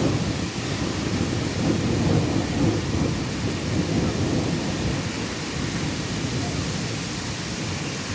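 Thunder rumbling over steady rain. The rumble is loudest in the first few seconds and fades out a little past halfway, leaving the even hiss of the rain.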